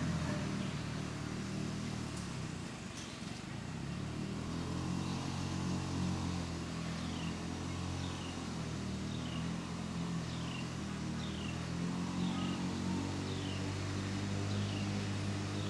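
Lawn-Boy 10520 mower's two-stroke F-engine running steadily under load, cutting thick, damp grass. It eases slightly a couple of seconds in, then comes back.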